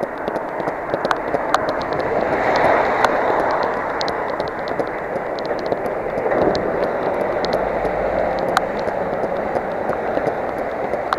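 Running footsteps on a wet pavement, light taps about two a second, over a steady hiss of rain and tyres on the wet road that swells twice, a couple of seconds in and again about halfway.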